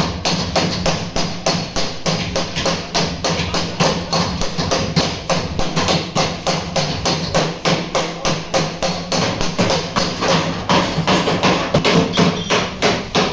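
Hammer blows on the sheet-metal skin of a car door, struck in a rapid steady rhythm of about five a second, as the dent is beaten out.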